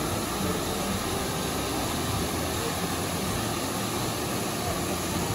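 Waterfall pouring into a rock-walled gorge pool: a steady, even rushing of falling water.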